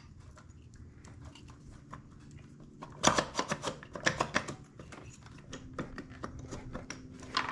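Light clicks and taps from the Yamaha RZ350's aluminium cylinders being wiggled down over the pistons and onto the case studs, with a busier run of louder clicks about three seconds in.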